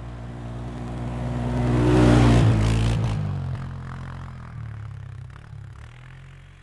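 ATV engine driving past, growing louder to its peak about two seconds in, then fading away with its pitch dropping as it goes.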